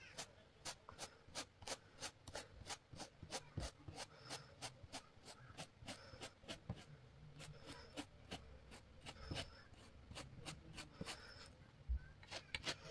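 Faint scraping and rubbing of a metal palette knife spreading thick homemade texture paste across a paper palette. Faint regular clicks, about three a second, run throughout.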